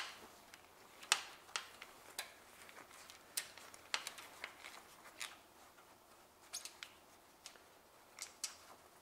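Light, irregular metallic clicks and taps, about a dozen, from a Honda R18A engine's timing chain as it is worked loose around the crankshaft sprocket by hand.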